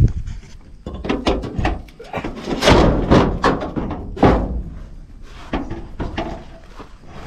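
Weathered wooden door panels of a battery box being unlatched and pulled off: a series of knocks and thunks, with the loudest knocks about a third and two-thirds of the way in.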